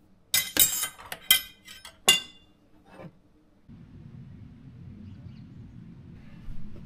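A metal spoon clinking against a mesh strainer and glass bowl while berry syrup is pressed through, a quick run of sharp ringing clinks in the first two seconds and one more a second later. After that, only a faint low steady background rumble.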